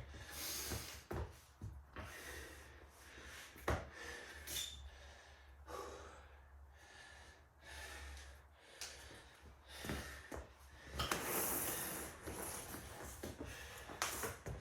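A man breathing hard and gasping, catching his breath right after a set of burpees. A few knocks are heard as well.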